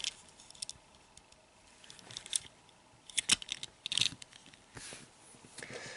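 Faint handling noises from fingers turning a small 1:64 die-cast toy pickup truck: a few scattered light clicks and brief rustles.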